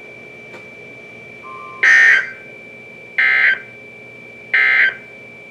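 NOAA Weather Radio SAME digital data tones: three short, identical warbling bursts about a second and a half apart, the end-of-message code that closes a warning broadcast. A faint steady high tone sits underneath.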